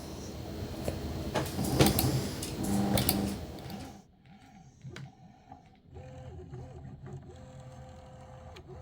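Stepper motors of a Loklik iPaint drawing machine moving the pen carriage as it starts laying down lines, a thin whine that steps and glides up and down in pitch and holds steady between moves. In the first half it is mixed with handling rustle and several sharp clicks.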